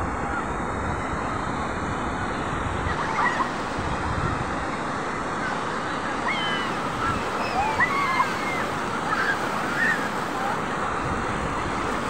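Surf breaking and washing up a sandy beach: a steady rush of waves. Faint high, bending calls are scattered over it, mostly in the second half.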